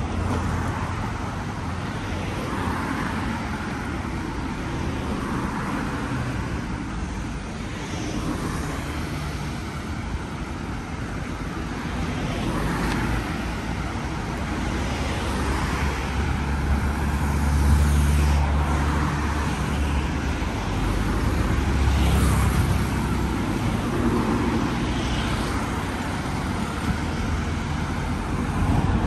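Road traffic: cars passing along a street, their engine and tyre rumble swelling loudest about two-thirds of the way through.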